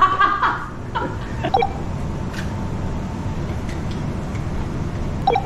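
A steady low rumble of room noise, with a few faint light clicks of chopsticks against a metal bowl as eggs are beaten. A man's laughter trails off at the start.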